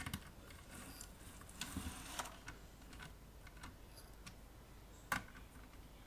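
Faint clicks and scrapes of small metal parts as the steel tube-socket panel is fitted onto the amplifier chassis by hand and nuts are started with a nut driver. The clicks are scattered, with a scratchy patch about two seconds in and one sharper click about five seconds in.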